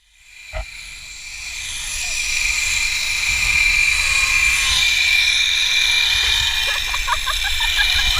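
Rainforest animal chorus: steady high-pitched calling that fades in over the first couple of seconds, over a low wind rumble, with a run of short chirps near the end.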